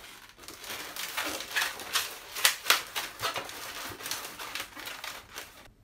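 Latex modelling balloons squeaking and rubbing against each other as twisted sections are wrapped together, in an irregular run of short squeaks.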